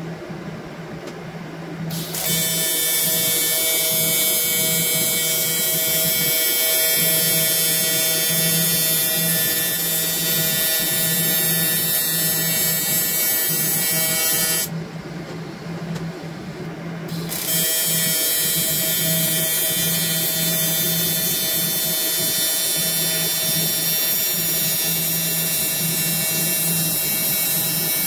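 TIG welding arc from an Everlast Typhoon 230 welding a sheet-metal trim/tilt reservoir, giving a steady buzz. It strikes about two seconds in, stops about halfway for a couple of seconds, then strikes again and runs on.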